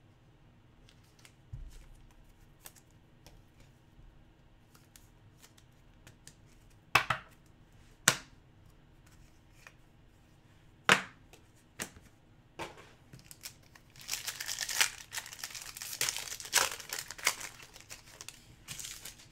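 A few sharp clicks from cards being handled, then, about 14 seconds in, the foil wrapper of an Upper Deck Ice hockey card pack being torn open and crinkled for a few seconds.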